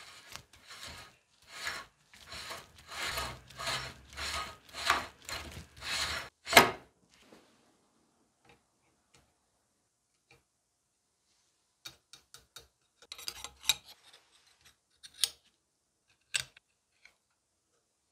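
DOKU AA-1.3B air hammer's body being screwed by hand onto its threaded steel barrel: metal threads rasping in a series of short strokes, about two a second, ending in a sharp clack about six and a half seconds in as it seats. Later, a few light metal clicks from needle-nose pliers at the notched barrel collar.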